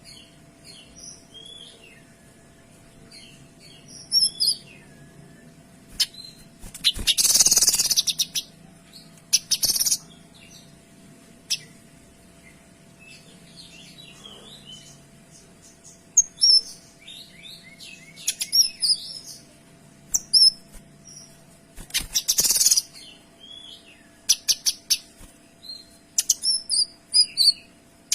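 A kinoy songbird in full song: quick high chirps and whistled notes in dense runs, with two loud harsh rasping bursts and rapid ticking rattles near the end.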